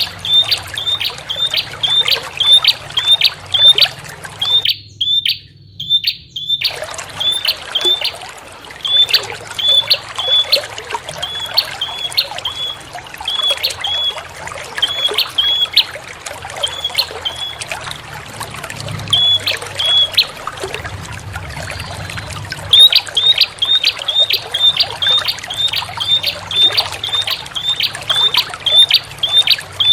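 Prenjak (prinia) lure call: sharp, high notes repeated several times a second, slowing through the middle and quickening again near the end, over a steady trickle of running water. The water sound drops out for about two seconds about five seconds in.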